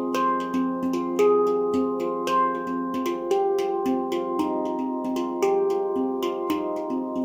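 Nimo handpan tuned to F low pygmy, played by hand: a steady flow of struck notes, about three or four a second, each ringing on and overlapping the next.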